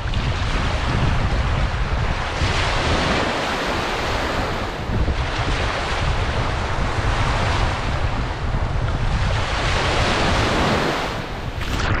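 Small waves breaking and washing up a sandy beach right at the microphone, the surf swelling every two to three seconds. Wind rumbles on the microphone underneath.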